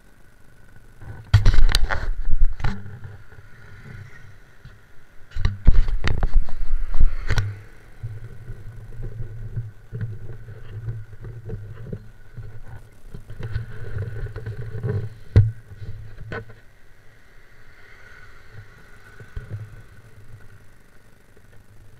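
Yamaha R15 motorcycle's single-cylinder four-stroke engine running while riding, a steady low hum. Two loud rough bursts of rumble, each lasting a second or two, cut in about a second and a half in and again about five and a half seconds in.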